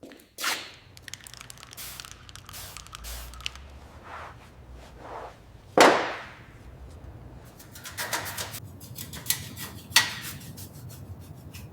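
Assorted handling noises: rubbing and scraping with scattered clicks and a few sharp knocks, the loudest about six seconds in, over a faint low hum.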